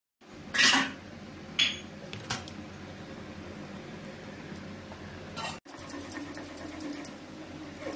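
Three short clatters of kitchen utensils, in the first two and a half seconds, over a steady background noise. After a break at about five and a half seconds, only the steady background noise remains.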